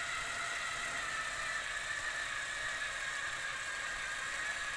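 Small electric motors of a Mould King brick-built Liebherr LTM 11200 mobile crane model running with a steady high whine as the model is driven back.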